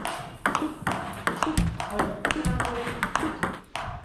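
A table tennis rally at backhand: the celluloid-type ball clicks off the rubber bats and bounces on the table in a quick, even series of sharp knocks, two or three a second. The player is hitting short, wrist-only backhand strokes.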